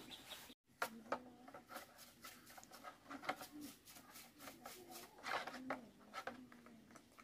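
Small clicks, taps and scrapes of a paintbrush and a chainsaw part against a plastic tray as the part is scrubbed in cleaning liquid, with hens clucking in the background.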